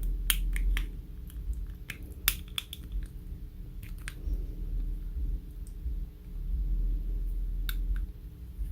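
Plastic key fob case being pried apart at its seam with a metal letter opener: scattered sharp clicks and small snaps as the blade works into the shell, busiest in the first few seconds, with one more click near the end.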